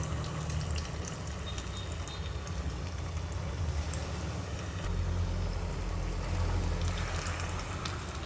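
Breadcrumb-coated chicken kebab sticks sizzling steadily in hot oil in a pan, with a fine, continuous crackle.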